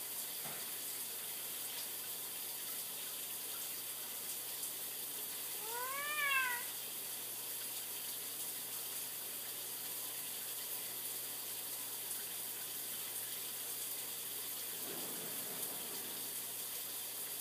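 A domestic cat meows once, a single call that rises and falls in pitch about six seconds in, over a steady background hiss.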